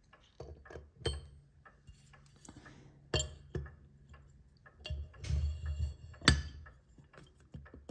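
Metal clock parts clinking and knocking as a steel shaft carrying a brass bevel gear is dropped into its bearing in the frame of a tower clock's upper motion works and a metal top plate is set over it. A few sharp clicks, then a cluster of knocks with a brief ring about five to six seconds in.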